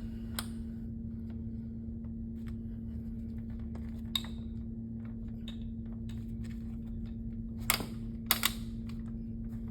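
Scattered light clicks and taps of a bolt being fitted by hand into the armrest mounting holes of a wheelchair, with a sharper click about four seconds in and a few louder ones near the end, over a steady low hum.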